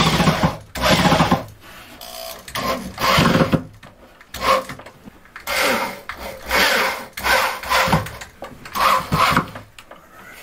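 Corded electric drill run in a series of about eight short bursts, each under a second, with brief pauses between.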